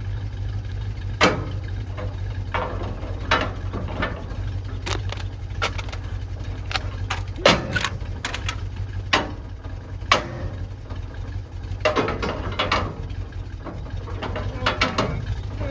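A Chevrolet Blazer's engine idling steadily under irregular sharp metal clanks and scrapes from a steel rock bar prying against the rusted fender and frame of a wrecked truck. The truck is hung up on that frame.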